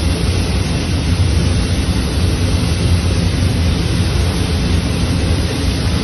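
Natural gas escaping under pressure and burning from a ruptured pipeline: a loud, steady rushing noise.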